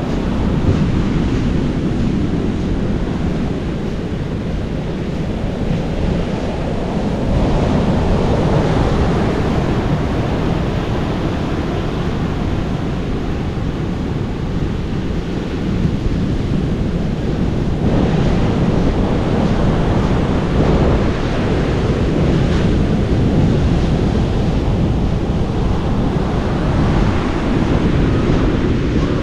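Sea surf breaking and washing on a rocky shore, surging louder about a quarter of the way in and again past the middle, with wind buffeting the microphone.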